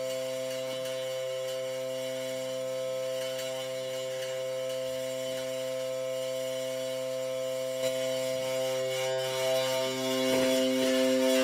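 Music: a held electronic drone of several steady tones sounding together. It gets a little louder near the end.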